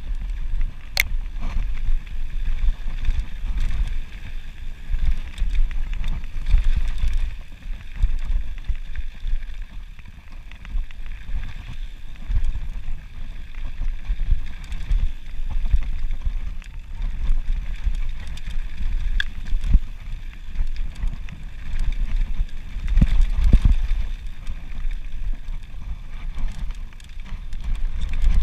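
Mountain bike rolling fast down a loose gravel trail: tyres crunching over stones and the bike rattling, under a constant rumble of wind buffeting the action camera's microphone. A sharp click sounds about a second in.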